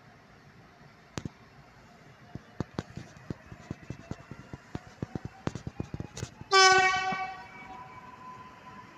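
Polregio regional train approaching a station, its horn sounding one loud blast about six and a half seconds in that dies away within a second. Before it come sharp, irregular clicks and ticks from the track, growing denser as the train nears. After the horn, a steady whine holds.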